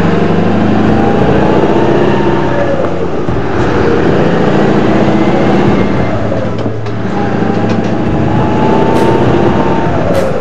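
Scania 144L 530's V8 diesel with an open-pipe (straight-piped) exhaust, heard from the cab while driving. The engine note climbs, drops briefly about two-thirds of the way through, then climbs again.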